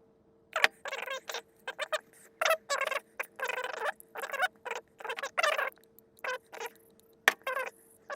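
Repeated short, high squeaks in an irregular string, roughly two a second, from metal parts being worked while a Bedford RL vacuum wiper motor is oiled during its rebuild.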